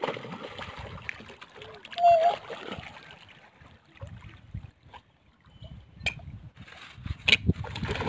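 Water splashing and lapping as a crowd of black swans and Eurasian coots jostles at the water's edge. One short pitched bird call about two seconds in is the loudest sound, and the splashing grows louder near the end.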